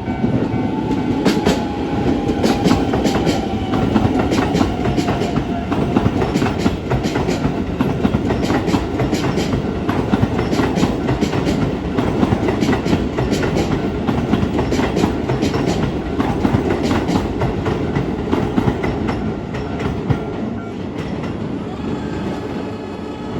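Keisei 3000-series electric train passing over a level crossing: a loud, continuous clickety-clack of wheels over the rail joints that fades about twenty seconds in. Steady warning tones from the crossing ring throughout.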